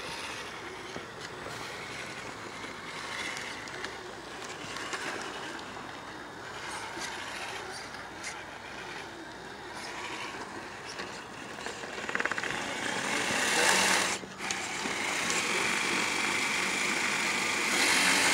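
Scale RC rock crawlers' electric motors and geared drivetrains whirring as the trucks creep over rocks. It grows louder about two thirds through, breaks off for a moment, then picks up again.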